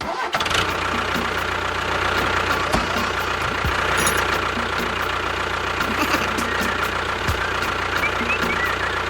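Homemade mini tractor-bulldozer's motor running steadily with a low hum and a regular ticking.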